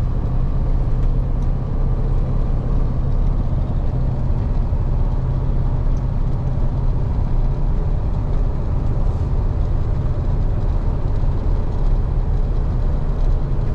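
KAMAZ 4308 truck's diesel engine running steadily with road noise while driving.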